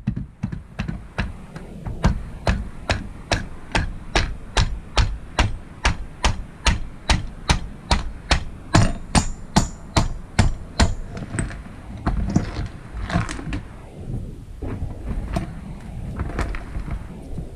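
A mallet striking a diaphragm water pump in a steady run of blows, about two and a half a second, as the base is hammered to pry it off. The blows stop about eleven seconds in, followed by a few irregular knocks and handling noise.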